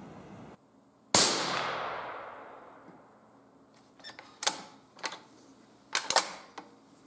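A single loud bang that dies away over about two seconds, then the bolt of a bolt-action rifle worked by hand: a handful of short, sharp metallic clacks.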